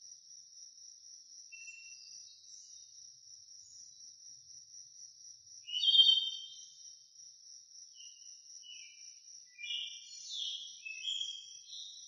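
Nature ambience: a continuous high-pitched insect trill like crickets, with short bird chirps over it. The loudest chirp comes about halfway through, and a cluster of calls follows near the end.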